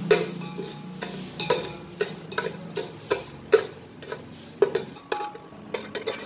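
Metal spoon stirring melting sugar in an aluminium pot, scraping and clinking against the pot's bottom and sides in irregular sharp strokes as the sugar caramelizes.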